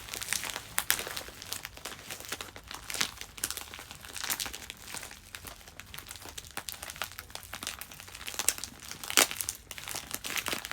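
Plastic mailer bag crinkling and rustling as it is handled and packing tape is peeled off it, in irregular crackles with a louder rustle about nine seconds in.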